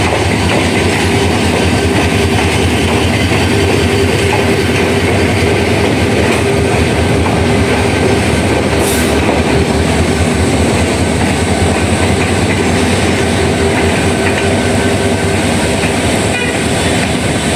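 The Dhaka Mail passenger train's coaches running over the yard's points and crossings, a steady clatter of wheels on the rails, with a short high hiss about nine seconds in.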